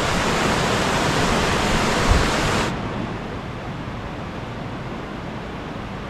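Mountain stream rushing over rocks and small rapids, a steady full splashing hiss. About two and a half seconds in it cuts abruptly to a softer, duller flow of water, with a brief low thump just before the change.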